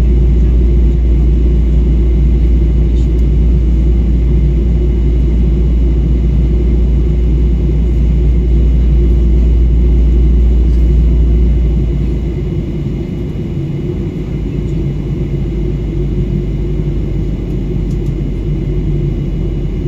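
Jet airliner cabin noise in cruise: a steady, loud rumble of engine and airflow. About twelve seconds in, the deepest part of the rumble fades and it gets slightly quieter.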